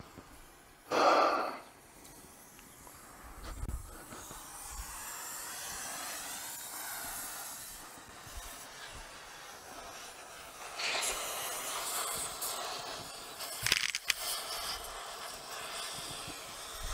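Lug wrench straining against seized, rusted wheel studs on a 1957 Ford truck wheel, which will not break loose. A short loud sound comes about a second in, then a steady hiss, with rougher rasping bursts near the end.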